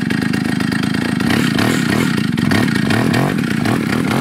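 Small two-stroke chainsaw engine of a homemade snowmobile running and being revved again and again, its pitch rising in short sweeps.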